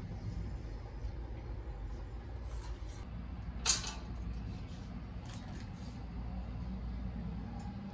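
A single sharp click or knock a little past a third of the way in, over a steady low rumble of room or traffic noise.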